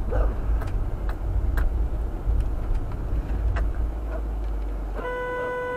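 Low rumble of a vehicle creeping slowly over a snowy road, with a faint dog bark near the start. About five seconds in, the vehicle's horn sounds in one steady, held honk.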